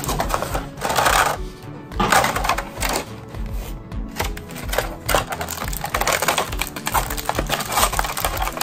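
Clear plastic blister packaging crinkling and clicking as it is handled and the action figure's tray is pulled out, over background music with a steady beat.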